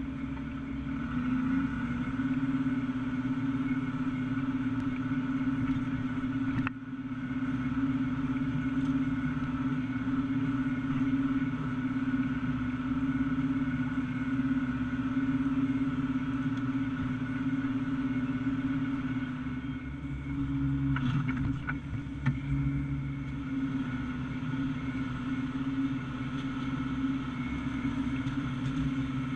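Tractor engine running steadily as it pulls a forage harvester chopping corn silage, a constant drone with a strong steady tone. About twenty seconds in the low drone shifts and a few knocks sound.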